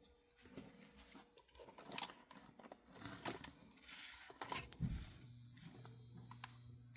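Small clicks and scrapes of an HO model locomotive's parts being handled and fitted, then a steady low hum that starts about five seconds in.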